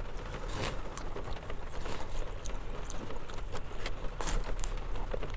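Close-up eating sounds: chewing and a plastic fork clicking and scraping in a styrofoam takeout container, heard as scattered irregular clicks over a steady low hum.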